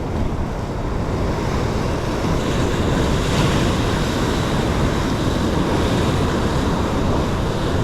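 Ocean surf washing against a rock shore, with wind buffeting the microphone as a steady low rumble.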